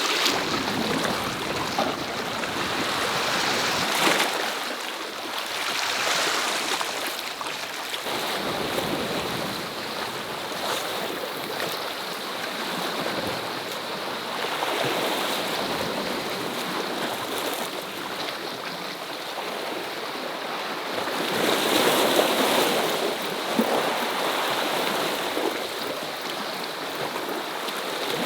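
Sea waves washing against a rocky shore, rising and falling in surges, with a louder surge about three quarters of the way through. A brief sharp sound stands out about four seconds in.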